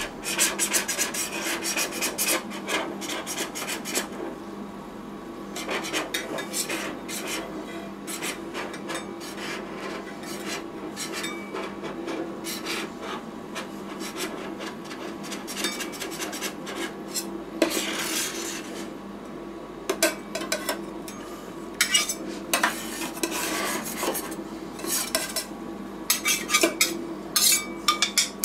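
Metal spatulas scraping frozen ice cream across the stainless steel cold plate of a rolled ice cream machine, rasping strokes as the sheet is pushed up into rolls. Sharp clicks and clinks of the blades against the plate come in quick clusters near the end, over a steady low hum.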